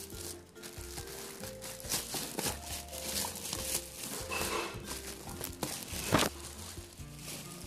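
Clear plastic bag crinkling and rustling as it is handled and pulled off an air fryer, in a run of short crackles with the loudest about six seconds in, over background music.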